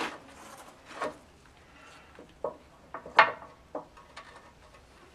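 A wrench clinking and knocking against the steel of the skid steer's bucket tilt cylinder pin mount while a retaining bolt is worked loose: about five irregular sharp metallic knocks, the loudest about three seconds in.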